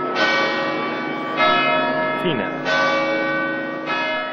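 A church bell tolling, struck four times at an even pace of a little over a second apart, each stroke ringing on into the next.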